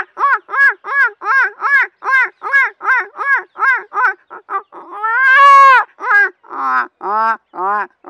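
A man imitating a peacock with his voice: a quick series of short, arched, nasal calls, about three a second, broken by one long, loud call about five seconds in.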